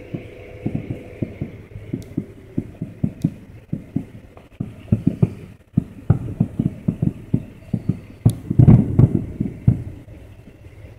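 Distant fireworks going off: a rapid, irregular string of muffled booms and pops, several a second, building to the loudest cluster about nine seconds in.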